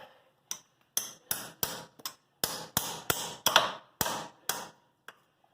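Hand hammer striking metal, about a dozen sharp blows at roughly two a second, each with a short ring.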